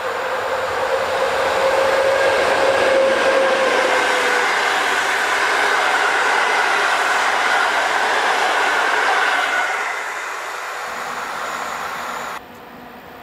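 EP07 electric locomotive hauling Intercity passenger coaches past at speed: loud rolling noise of wheels on rails with a steady whine. It fades about ten seconds in as the train draws away, then cuts off suddenly near the end.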